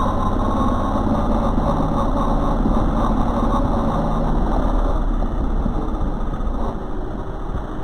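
Car engine and road noise running steadily inside a moving car, picked up by the dashcam's microphone; it eases off slightly in the last few seconds.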